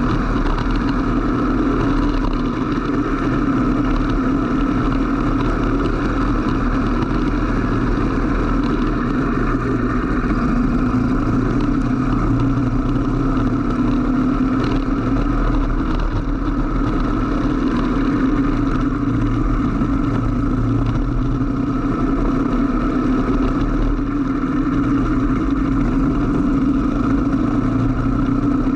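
Racing kart engine running steadily at speed, heard from on board the kart.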